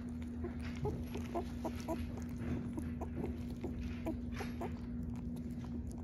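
A young puppy lapping and smacking wet puppy mush off a gloved hand: a run of short, wet smacks, several a second, over a steady low hum.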